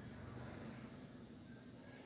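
Quiet room tone with a faint steady hum; no distinct drawing or erasing strokes stand out.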